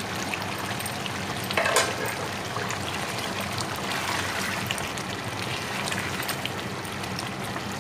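Thick curry simmering in a pot as a spoon stirs through it: wet sloshing with many small pops and ticks. A louder, brief scrape comes about two seconds in.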